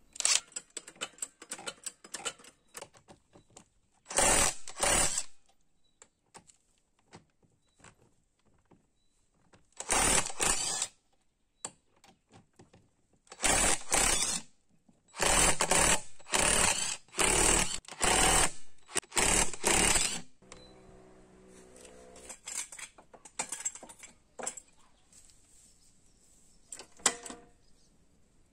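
Cordless impact wrench hammering on an ATV's wheel lug nuts in about ten short bursts, each under a second, with light clicks and handling sounds between them.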